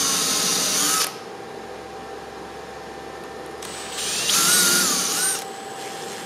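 Cordless drill with a 1/8 bit pre-drilling pilot holes through a door hinge into the door's timber edge: two bursts of motor whirring, one in the first second and a longer one of about a second and a half from about four seconds in.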